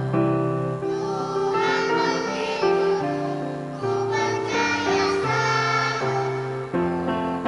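Children's choir singing a hymn in several parts, with sustained keyboard chords underneath.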